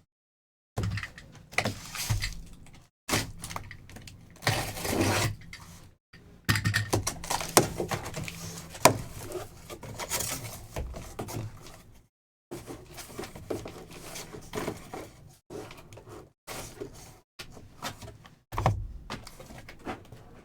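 Cardboard boxes and plastic wrapping being handled and opened: irregular crinkling, tearing and knocks, breaking off into silence several times.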